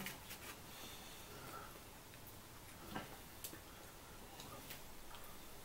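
Faint, irregular light clicks and ticks from handling a chocolate candy and breaking it open.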